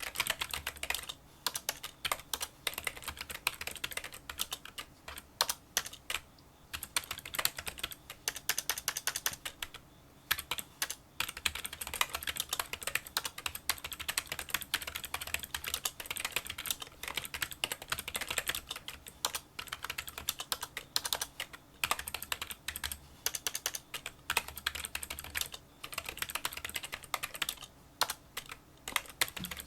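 Kinesis Freestyle Solo split keyboard with membrane key switches being typed on fast and without a break except for a few short pauses: a quick stream of small clicking keystrokes.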